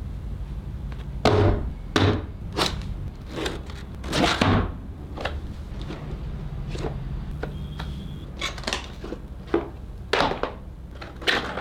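Cardboard laptop box handled on a desk: two sharp knocks about a second in as it is set down, then a run of short cardboard knocks and paper rustles as the flaps are opened and the packing paper and inserts are lifted out.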